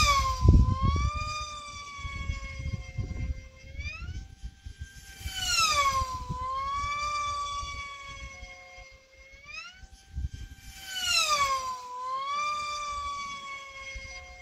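Electric F3E pylon-racing model aircraft flying past the pylon: the high motor-and-propeller whine drops sharply in pitch as each plane goes by, three passes about five seconds apart.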